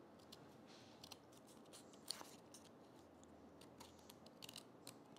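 Faint, irregular snips of small green-handled scissors trimming excess cardboard from around a glued paper template. The clearest snip comes about two seconds in, and a quick cluster of snips comes near the end.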